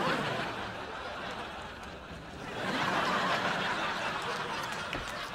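Studio audience laughing, dipping and then swelling again about two and a half seconds in.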